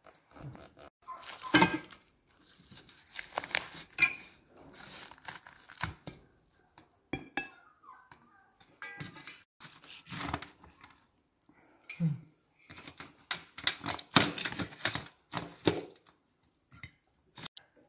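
Charcoal-roasted duck being torn apart by hand and cut with a knife on a metal serving tray: irregular crackling tears of crisp skin and meat, with knife scrapes and light knocks against the tray.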